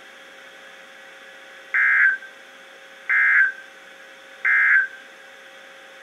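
Three short, shrill digital data bursts, about a second and a half apart, from a Midland NOAA weather radio's speaker: the SAME end-of-message code that closes an emergency alert broadcast.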